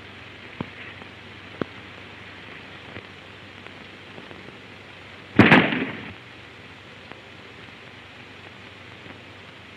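A single gunshot on an old film soundtrack: one sharp, loud crack about five seconds in with a short fading tail, over the steady hiss of the old recording. A couple of faint knocks come earlier.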